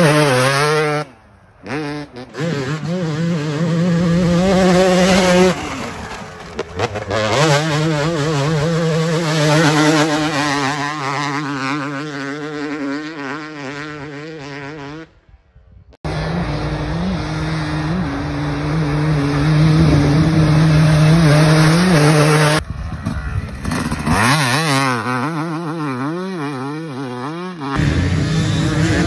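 Two-stroke motocross bikes riding a dirt track, the engines revving up and down with the pitch rising and falling. It comes as a string of short clips that cut off abruptly, with brief dips between them.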